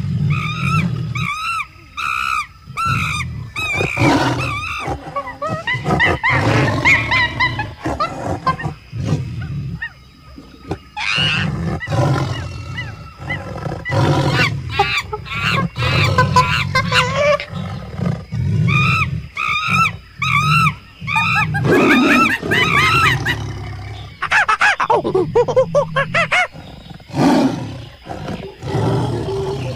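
Low tiger growls running under repeated high-pitched monkey calls that come in bursts.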